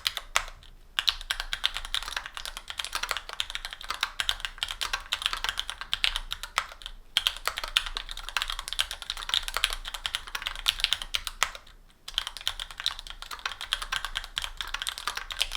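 Fast typing on a Special Dolphin mechanical keyboard with stock Gateron Pro Yellow 50g linear switches, an aluminum plate, GMK keycaps and sponge dampening: a dense run of key clacks. There are brief pauses about half a second in, near the middle and about three quarters of the way through.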